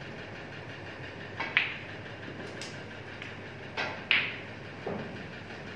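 Snooker balls clacking sharply against each other: a pair of clicks about a second and a half in and a louder pair about four seconds in, with a few fainter knocks between, over a steady background hiss.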